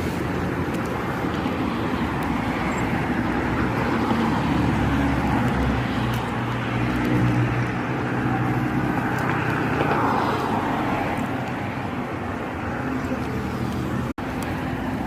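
Steady road traffic noise, with a vehicle passing about ten seconds in.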